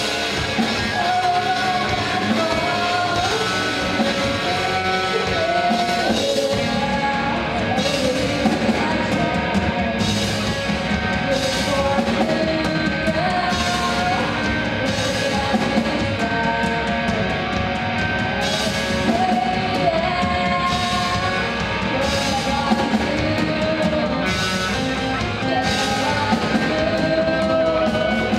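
Live rock band playing with a lead singer: electric guitars, electric bass and drum kit, amplified through a hall PA. About six seconds in the drums pick up, with cymbal crashes every couple of seconds over the sung melody.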